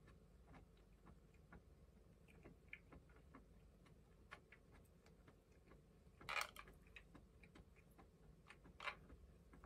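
Faint clicks of chopsticks against a rice container while eating rice, with two louder clicks about six and a half and nine seconds in.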